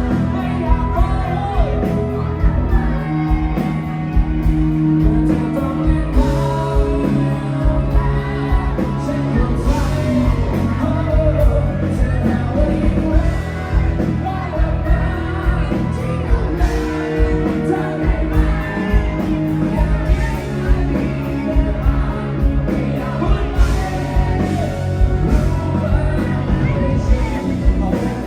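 Live band music with a singer and a steady pounding beat, loud over a sound system in a bar, with occasional shouts.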